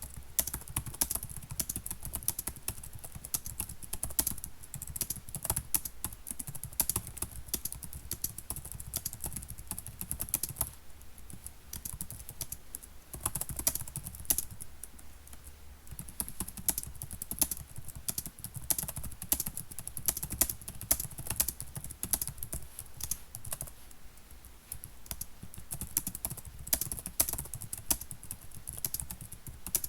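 Typing on a computer keyboard: a fast, irregular run of key clicks, easing off briefly a few times, around twelve seconds in and again in the mid-twenties.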